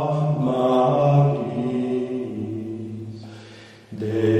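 Latin chant being sung: a slow phrase that fades away over about two seconds, then the singing resumes abruptly near the end.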